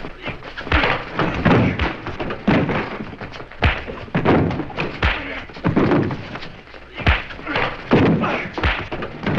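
Fistfight: heavy punches and body thuds landing every second or two, amid scuffling and grunts.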